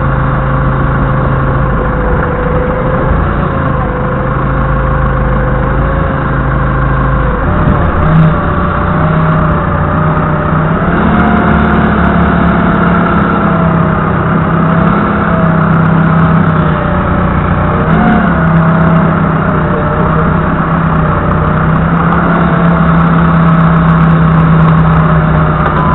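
Doosan 4.5-ton forklift's engine heard from the driver's seat, idling, then revving up about seven seconds in and running steadily at the higher speed with a thin whine over it as the forklift moves off.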